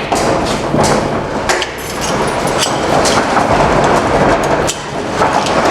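Metal roll-up door of a storage unit rattling and clattering as it is pushed up, just after being unlocked.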